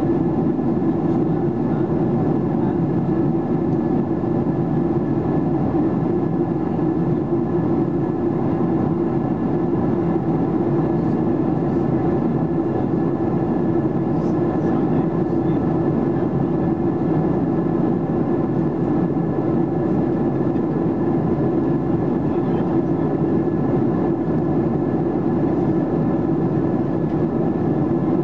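Steady cabin noise inside a Boeing 737-800 in flight: its CFM56-7B jet engines and the airflow over the fuselage make a constant rush with a low hum and a few faint steady tones, unchanging throughout.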